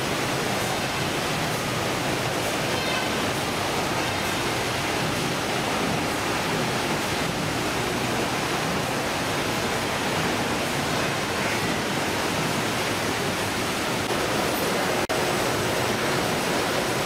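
Steady, even rushing noise of a fish-processing line at work: conveyor machinery and running water, with no distinct strokes or tones. A short click near the end.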